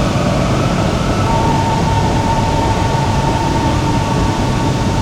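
Shenzhen Metro Line 14 train running, a steady rumble of wheels on rail with the thin whine of the traction motors; a new steady whine tone sets in about a second in.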